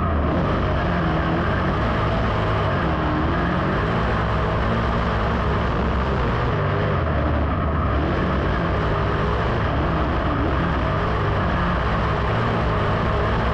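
Dirt modified race car's V8 engine at racing speed, heard from the in-car camera, its pitch rising and falling repeatedly as the driver gets on and off the throttle through the turns.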